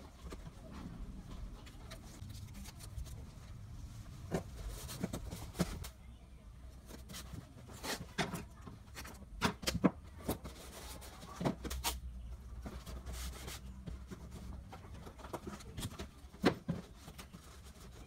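Empty paperboard milk cartons being handled and set down on a table: scattered light knocks and taps, loudest around the middle, over a low steady background rumble.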